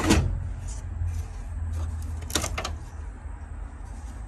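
Light clicks and rattles of dash instrument bulb holders and their wiring being handled and twisted out of the back of the dash panel. A group of sharp clicks comes right at the start and another, about three clicks, about two and a half seconds in, over a steady low rumble.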